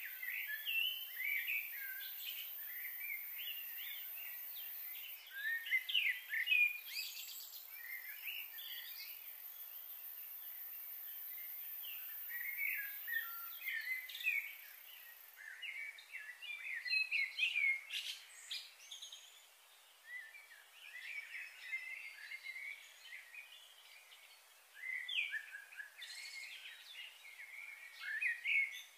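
Small birds chirping and twittering in quick, overlapping bursts, busier at times and sparser in between, with a faint high steady whine during the first half.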